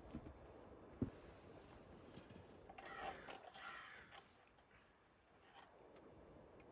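Faint cawing of a crow-like bird, a short run of calls about three to four seconds in. A single soft knock about a second in.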